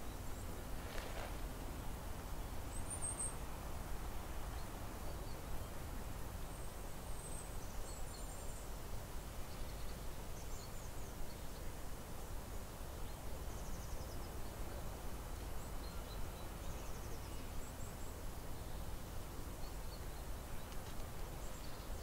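Outdoor pond-side ambience: a steady low rumble of background noise with a few faint, high, short songbird chirps scattered through it, the first about three seconds in.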